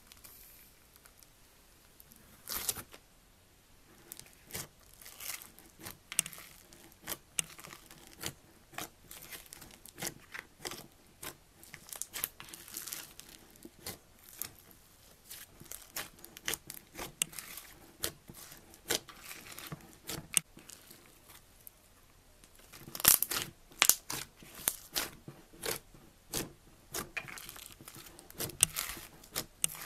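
Hand kneading and squeezing mixed slimes, some full of foam beads, in a bowl: irregular crackling pops and squelches as air pockets burst. The pops come in a louder run about three-quarters of the way through.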